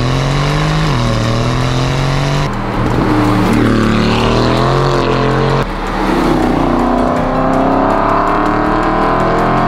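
Aston Martin Vantage's twin-turbo V8 accelerating hard through the gears, its note climbing and dropping back at each upshift, heard close to the exhaust tailpipes. After a couple of edits, sports-car engines accelerating, with one long, steady climb in pitch near the end.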